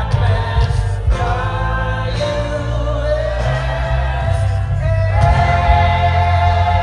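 Music: a choir of voices singing long held notes over a band with a heavy, steady bass.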